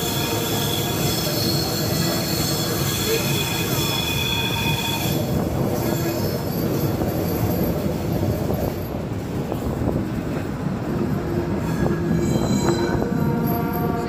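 Passenger train rolling along the track, heard from beside the carriage, with a steady rumble of wheels on rails. High, steady wheel squeal rings over it for the first few seconds, dies away, and comes back more faintly near the end.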